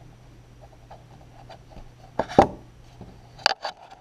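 Wire cutters working at a rubber-jacketed extension cord's insulation to strip it back: light scraping and ticking, a louder burst about two seconds in and a quick run of sharp clicks near the end.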